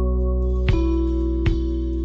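Background music of sustained plucked-string notes, with new notes struck twice.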